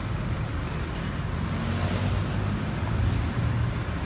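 Steady city street traffic noise: a low rumble of cars on the surrounding roads.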